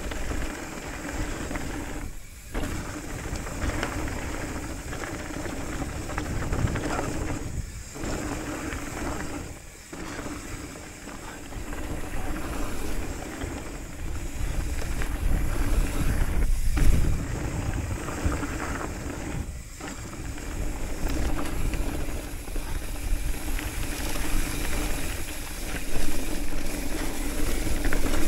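Mountain bike riding fast down a dirt trail: tyres rolling over dirt and gravel with wind on the microphone and a low rumble, the noise dropping out briefly about five times.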